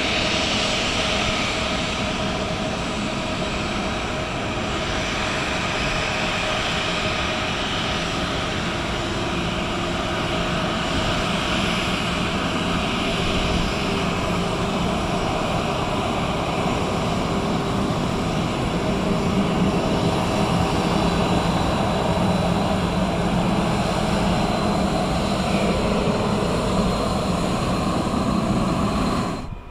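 Boeing 737-800's CFM56-7B turbofan engines running at taxi power as the airliner taxis past: a steady jet whine over a rumble, holding several pitches at once.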